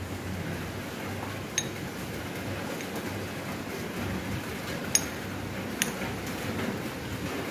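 A steel spoon clinking against a ceramic bowl of gulab jamun in syrup: three short, sharp clinks, one about a second and a half in and two close together about five seconds in, over a steady low background rumble.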